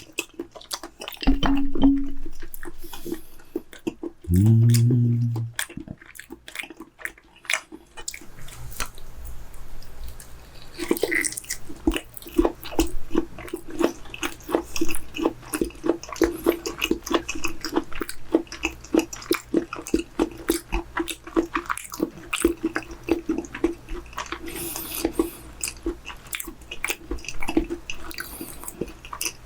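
Close-up wet chewing of raw chicken breast slices: a long run of fast, moist mouth clicks, with a short hummed 'mm' about four seconds in.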